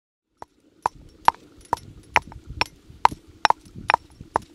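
Stone pestle pounding in a carved stone mortar, crushing roasted coriander seeds, cashews, cloves and cinnamon for a masala. About ten sharp, evenly spaced knocks, roughly two a second, starting about half a second in.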